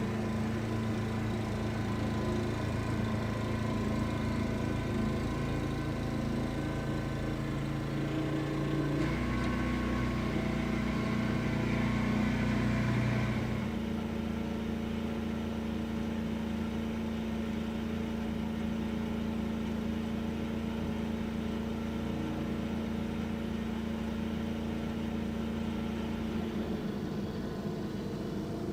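Snow blower engine running steadily. Its note steps up and grows louder about nine seconds in, then drops back to a lower, steady hum a few seconds later.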